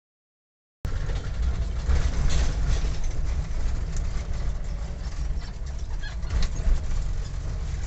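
Dead silence for about the first second, then the steady low rumble of a moving vehicle's engine, with scattered crackles over it.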